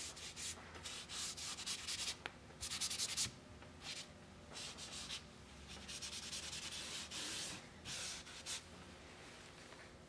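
Hand rubbing across drawing paper, smudging and blending pencil graphite shading. It comes in several spells of quick scrubbing strokes with short pauses and grows quieter near the end.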